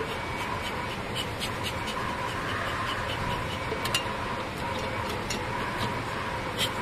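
Honeybees buzzing around the open-air hives as a steady hum, with a scatter of short, sharp ticks over it.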